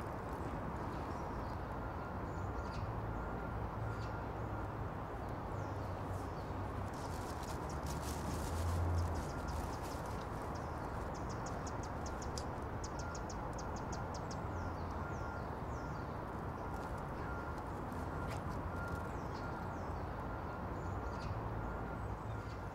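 Outdoor park ambience: a steady hum of distant background noise with birds calling now and then, including a rapid trill about halfway through.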